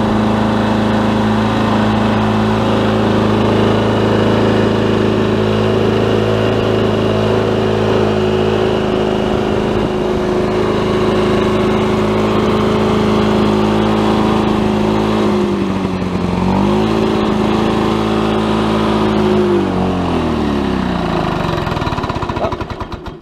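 1987 Lawn-Boy 8243AE's two-stroke OMC F-series engine running at a steady speed. About sixteen seconds in its speed sags and picks back up, then it winds down and stops near the end as it is shut off.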